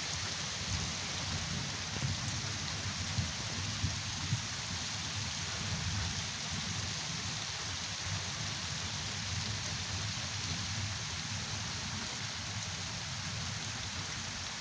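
Steady rain falling on trees and garden foliage, an even hiss with a few sharper drop taps in the first few seconds.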